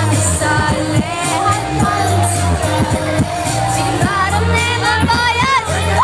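Pop song with female vocals over a steady bass beat.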